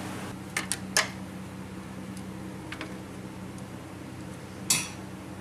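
Light, irregular metallic clicks and ticks of a wrench working a small clamp bolt on a Citroën DS steering column, with one brief louder burst of noise about four and a half seconds in.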